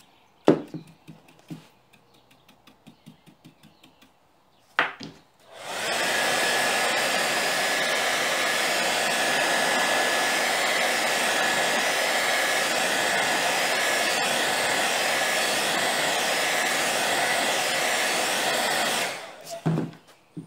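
A sharp knock in the first second and another about five seconds in. Then a handheld hair dryer is switched on, blowing steadily with a rushing sound and a faint steady whine to dry the freshly painted MDF, and is switched off near the end, followed by a knock.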